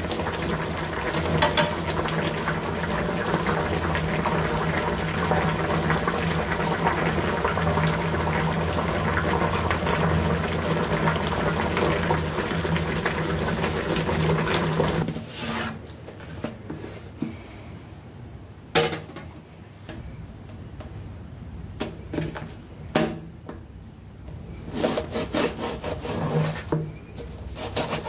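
Pig lung and potato stew boiling hard in a frying pan, a steady rush of bubbling. About halfway it cuts to a quieter stretch of a knife slicing raw pig lung on a wooden cutting board, with scattered sharp knocks and scrapes of the blade against the wood.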